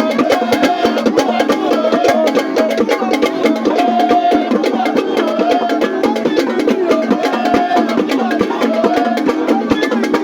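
Music with a fast, steady percussion beat of sharp clicks under a wavering melodic line.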